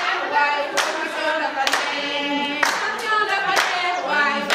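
A group of people singing together in unison, clapping their hands to a steady beat.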